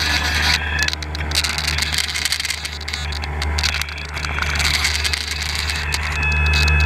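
RC airboat's motor and air propeller running steadily, heard close up from the boat itself as a low hum under a hiss. Near the end a short high whine cuts in as the camera's tilt servo moves up and down, the sound the owner calls unpleasant.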